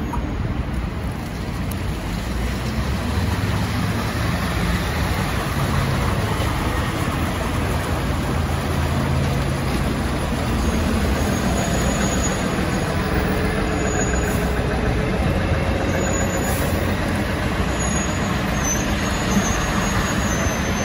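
MTA city transit buses running close by: a steady engine drone with road noise, slowly growing louder over the first few seconds.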